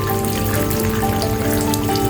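Rain falling with scattered, separate drop ticks, under soft instrumental music of long, held notes that change slowly.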